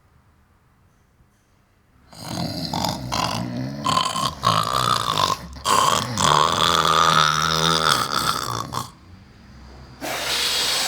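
A person's loud, drawn-out guttural throat noise, rough and fluttering in places, lasting several seconds. A steady hiss starts near the end.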